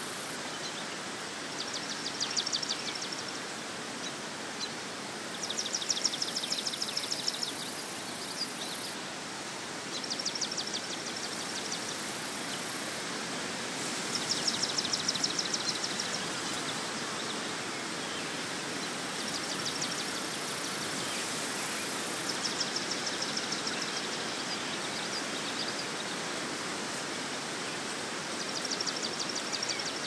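Marsh ambience: a steady outdoor hiss, with a bird repeating a short, high, buzzy trill every few seconds.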